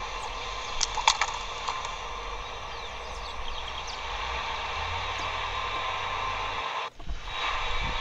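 Steady outdoor hiss and low rumble with a few short songbird chirps about a second in and faint calls around the middle. The sound drops out briefly near the end.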